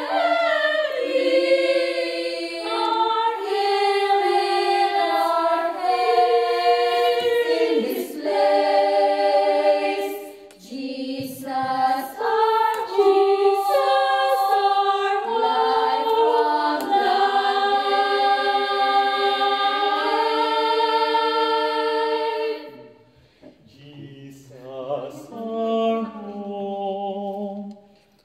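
Small women's choir singing a cappella in several parts, with long held notes. The singing breaks off near the end, followed by quieter, lower voices.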